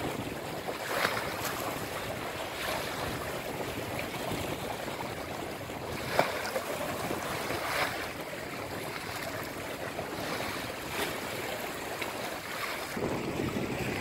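Choppy river water lapping at the shore, with wind rumbling on the microphone and a few sudden louder slaps of water.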